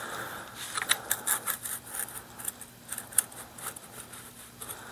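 Parts of a Rossi Gallery .22 pump rifle's action being slid apart by hand: scraping and rubbing with a run of small clicks as a receiver cover piece slides off. One sharper click about three seconds in.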